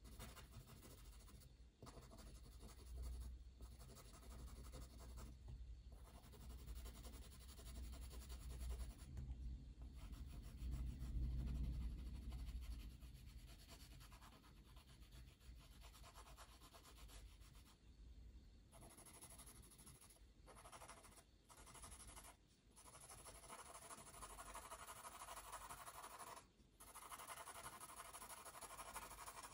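Pencil scratching and rubbing on paper, faint, in runs of strokes broken by short pauses.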